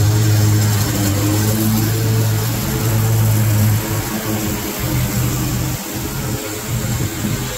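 Husqvarna Z454XS zero-turn mower running and cutting thick, tall grass: a steady engine drone that weakens and turns uneven about four seconds in as the mower passes and heads away.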